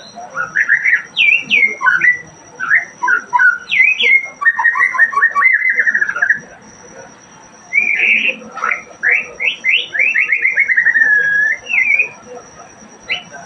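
Caged murai songbird singing: long varied phrases of quick whistled sweeps, rapid trills and falling slurs, with a pause of about a second and a half midway.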